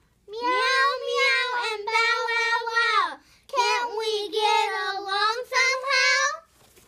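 A child's voice drawn out in long, wavering sung notes, mimicking a cat's meow and a dog's howl. It comes in two long stretches with a short break about three seconds in.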